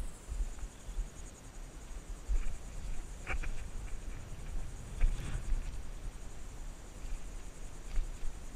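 Steady high-pitched insect trill, like crickets, with a fine even pulse. A few low thumps and short knocks come and go, the loudest about five seconds in.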